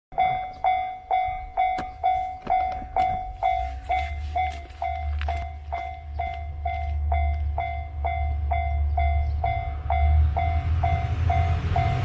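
Japanese level-crossing warning bell ringing steadily, about two strikes a second, each fading quickly. Under it the rumble of an approaching electric train builds through the second half and grows louder as it nears.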